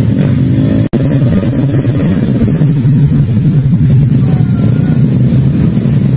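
Several motorcycle engines running and revving together as riders on palm-fruit-laden bikes set off up a slope. The sound cuts out for an instant about a second in.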